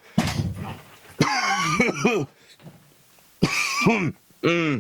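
A man gagging and coughing in several loud, strained bursts, as if retching.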